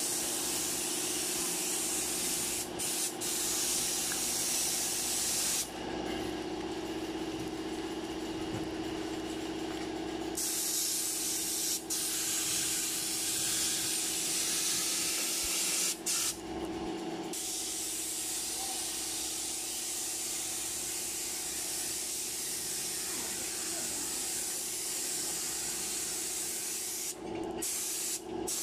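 Paint spray gun hissing steadily as it sprays red enamel onto an iron window grille. It stops three times as the trigger is released: for about four seconds around a fifth of the way in, and briefly twice later. A steady low hum runs underneath.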